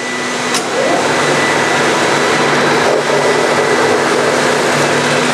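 Forrest Model 236 vertical bandsaw running together with its dust collection system: a steady, loud noise of rushing air and motor hum, swelling during the first second as the traveling table carries a block of low-density foam into the blade and the cut goes through.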